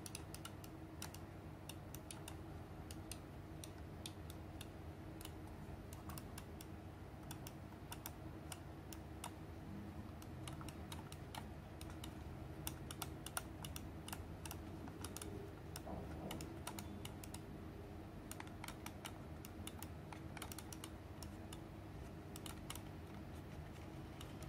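Faint, irregular light clicks and ticks as fingers press and smooth textured grip tape onto the side of a gaming mouse.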